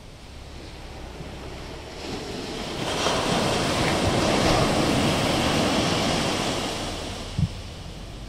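Ocean surf on a sandy beach: a wave breaks and rushes up the shore, the wash swelling about two seconds in, loudest in the middle, then easing off. Wind rumbles low on the microphone throughout, and a brief low thump comes near the end.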